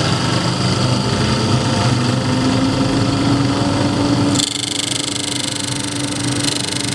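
Bench disc sander running with its dust suction on, a steady machine drone with a slowly rising motor tone. About four and a half seconds in the sound changes suddenly, turning a little quieter with a higher hiss, as a piece of MDF is held against the spinning sanding disc.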